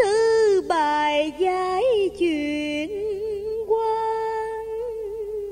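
A woman singing a slow, ornamented cải lương vocal line, her pitch bending and wavering from phrase to phrase, then settling into a long held note for the last couple of seconds.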